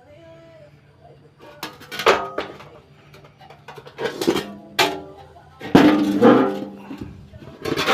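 Background music of strummed, plucked string chords, several strong strums ringing out a second or two apart.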